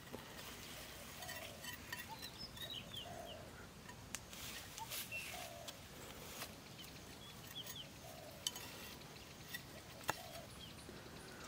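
A large knife blade digging and scraping into dry, crumbly soil, with a few sharp knocks, the clearest about four and ten seconds in. Birds call in the background: a low coo repeated every couple of seconds and brief high chirps.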